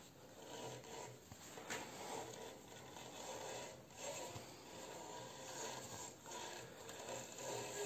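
Sandpaper held against a wooden burl bowl spinning on a wood lathe, a soft rasping rub that swells and eases every second or so.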